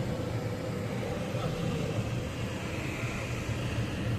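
Mining dump truck's diesel engine running steadily: a low drone with a faint steady whine above it.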